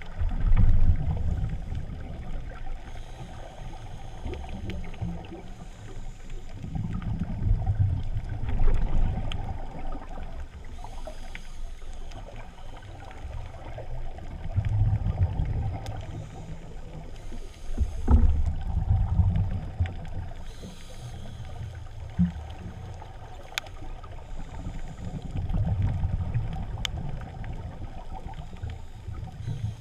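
Muffled underwater rumble of water moving over a camera housing as a spearfishing diver swims along the seabed, swelling every few seconds, with a few sharp clicks.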